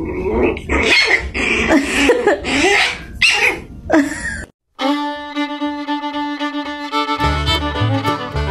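A tiny puppy yipping and whining in quick, high-pitched bursts. About halfway through, the sound cuts out briefly and background music with sustained string notes begins, with a bass line joining near the end.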